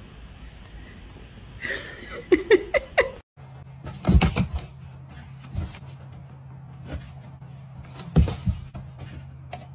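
A few short voice sounds that rise and fall in pitch, then, after a cut, a cat knocking and bumping about inside a cardboard box: several sharp thumps on the cardboard, the loudest about a second after the cut and again near the end, over a steady low hum.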